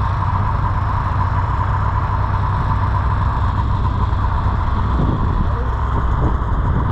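Snowmobile engine running steadily, a constant low drone with a steady higher whine over it.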